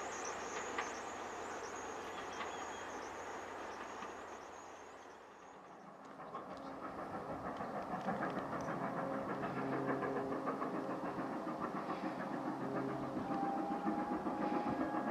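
Steam locomotive working towards the listener under steam, its quick, even exhaust beats growing steadily louder from about six seconds in.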